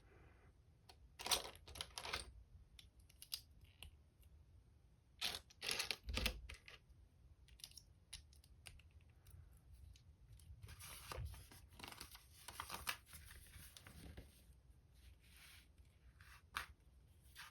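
LEGO bricks and their packaging being handled: short sharp clicks and plastic rustling, with longer crinkling stretches about five seconds in and again about ten to fourteen seconds in.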